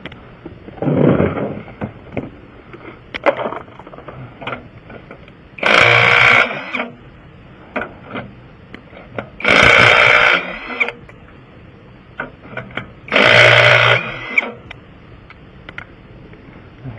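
Cordless impact wrench running in three one-second bursts, loosening the wheel's lug nuts, with lighter clicks and knocks of tool handling between.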